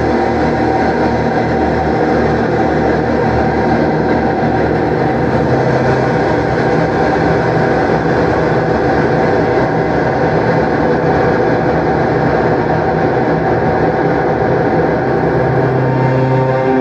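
Ambient drone from a contrabass clarinet played through effects pedals into a Walrus R1 stereo reverb and heard through studio speakers: a dense, steady wash of held tones.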